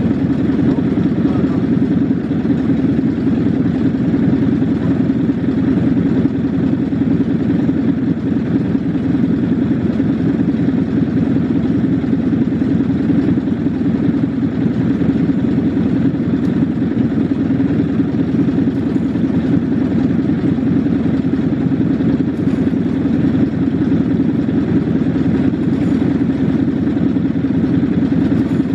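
Craftsman lawn mower's small engine running steadily during a cold start in chilly weather, warming up with no change in speed.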